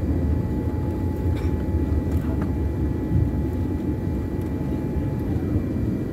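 Airliner cabin noise during landing: a steady low rumble of jet engines and airflow, with a thin steady whine that slides down and stops about five seconds in.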